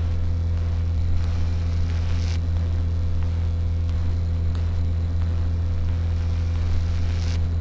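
A steady low electrical hum over a faint hiss, with a couple of faint brief rustles.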